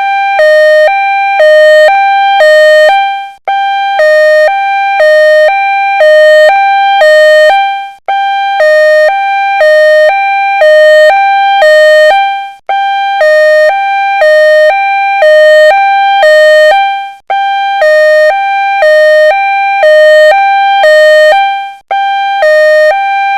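Two-tone hi-lo ambulance siren, switching between a higher and a lower tone about every half second. It cuts out briefly every four to five seconds and starts again.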